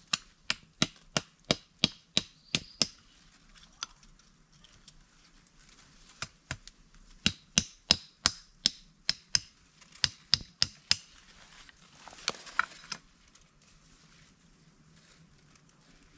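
Quick repeated strikes of a knife blade chopping into wood, about three a second, in two runs with a pause of a few seconds between. A short rustle follows near the end.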